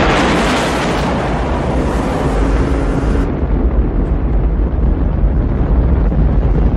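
Cinematic explosion sound effect: a boom, then a deep, steady rumble. The hiss on top drops away suddenly about three seconds in.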